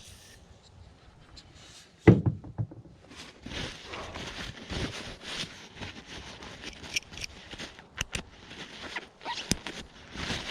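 A multi-bit screwdriver being taken apart by hand: a single thunk about two seconds in, then continuous rustling and small clicks as the pieces are handled.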